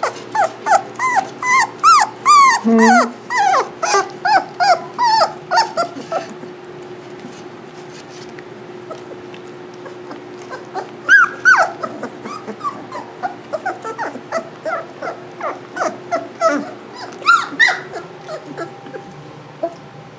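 Young Labrador retriever puppies whining and yelping in short, high-pitched cries that rise and fall. The cries come several a second for the first six seconds, thin out, then flare up again about halfway through and near the end.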